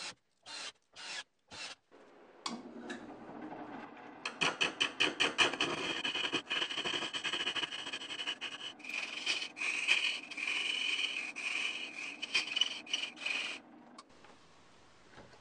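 A hand-held turning chisel cutting a spinning plywood bandsaw wheel's pulley ring: a steady scraping rasp with a fast regular pulse, which stops about a second before the end. In the first two seconds there are a few short, evenly spaced bursts.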